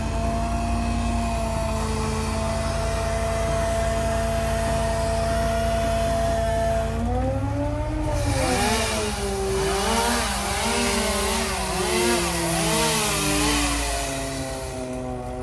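A steady hum, then from about seven seconds in a chainsaw revving up and down over and over with a loud hiss of cutting.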